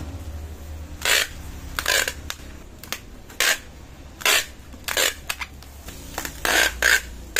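Packing tape pulled off a hand-held tape dispenser in short ripping strips, about seven pulls, taping bubble wrap around a bottle. A low steady hum sits underneath.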